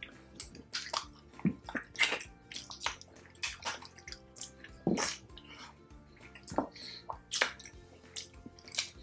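Close-miked eating: wet chewing and lip-smacking, a quick irregular run of short sticky clicks as two people eat pork and sisig by hand, over quiet background music.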